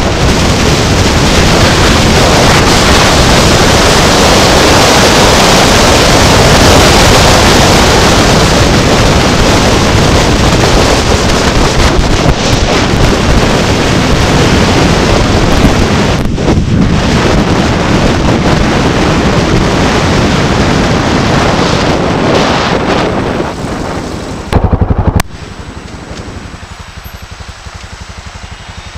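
Heavy wind noise buffeting the microphone of a camera on a moving ride: a loud, even roar. About 25 seconds in there is a short, very loud low burst, and then the noise drops to a much quieter level as the ride slows.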